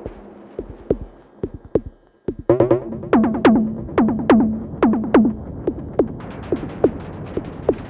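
Glitchy electronic synth blips processed through a Befaco Iroi effects module: short plucked notes whose pitch drops quickly, repeating in an uneven rhythm. They thin out and almost stop about two seconds in, then come back denser.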